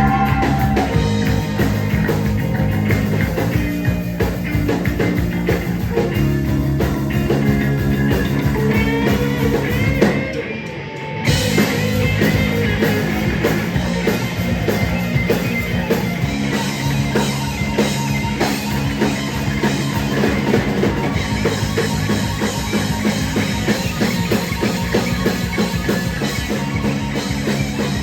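Rock band playing live with drum kit and guitar, a steady driving beat. About ten seconds in the band drops out for a moment, then comes back in together.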